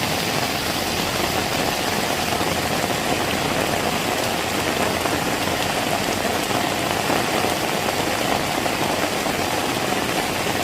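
Steady, heavy rain falling, an even hiss of raindrops throughout.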